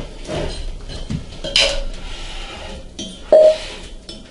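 Twin-cylinder V air compressor pump turned over by hand at its flywheel pulley: metal clinks and short bursts of air as the pistons compress. There is a brief, loud tone a little over three seconds in.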